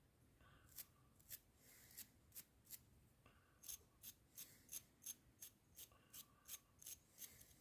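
Faint light clicks and scratches, irregular, two or three a second, from the small metal parts of a vintage strip-down spark plug being handled and worked on.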